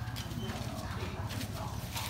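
An engine idling with a fast, even chug.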